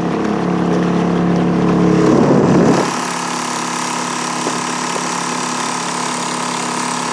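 Honda outboard motor running on a small boat. About two and a half seconds in, its note changes abruptly, then it runs on quieter and steadier, as if throttled back.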